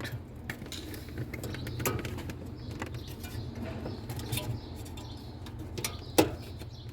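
Small clicks and taps of wiring connectors being handled and pushed together, over a steady low hum, with a sharper click about six seconds in.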